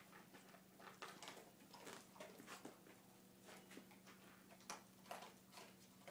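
Faint, irregular tapping and scuffling, a few sharp ticks a second: cats' paws and claws moving on bookcase shelves during play. A low steady hum runs underneath.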